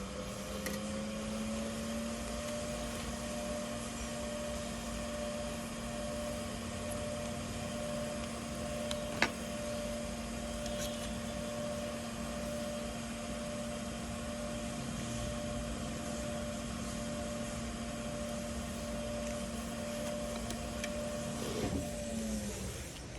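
A small electric motor spins up over the first couple of seconds, runs at a steady pitch with a hum and an even hiss of air, then winds down and stops near the end. There is a single sharp click about nine seconds in.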